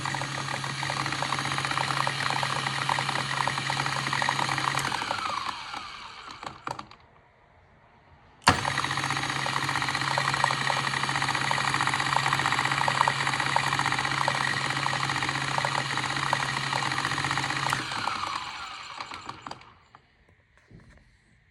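Mahlkönig X64 SD coffee grinder running twice: each run starts abruptly with a steady motor hum and dense crackling, then the motor cuts and a falling whine fades out as it spins down. It is the noise the owner finds strange.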